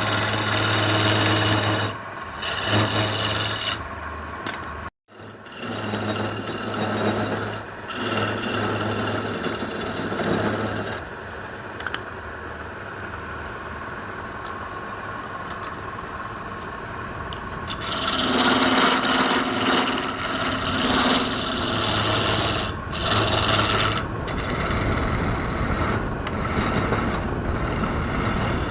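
Wood being worked with an abrasive tool: a dry, rasping, rubbing sound. A steady low motor hum runs under the first part, and the sound cuts out briefly about five seconds in. The rasping is loudest a little past the middle.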